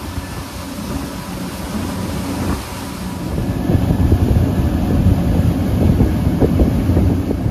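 Twin Suzuki outboard motors running at speed as the boat travels, with water rushing in the wake and wind buffeting the microphone. It gets louder about three and a half seconds in.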